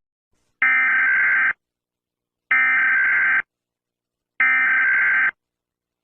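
Emergency Alert System SAME header: three identical bursts of digital data tones, each just under a second long and about two seconds apart. The header encodes the alert's originator, event and area, and marks the start of an EAS broadcast.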